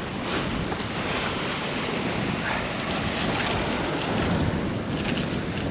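Ocean surf washing onto the beach, with wind rumbling on the microphone. A few faint ticks about three and five seconds in.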